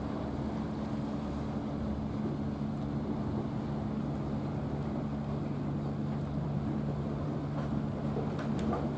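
A steady low engine drone that shifts slightly in pitch, over a wash of wind and sea noise. A few small clicks come near the end.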